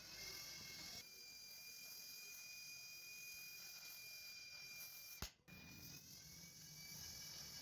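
Near silence: faint hiss with a steady thin high whine, and a single sharp click about five seconds in.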